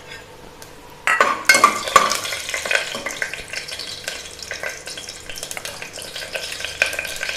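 Whole spices (fennel seeds, cinnamon, cloves, cardamom) dropped into hot oil about a second in, sizzling and crackling loudly at first, then more evenly as they are stirred in the pan.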